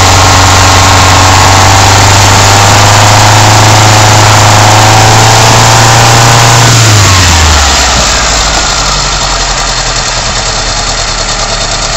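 Ford Escort Mk3 1.6's four-cylinder engine, on twin Weber 40 DCNF carburettors, held at raised revs during mixture setup. About seven seconds in the revs fall away and it settles to a steady idle.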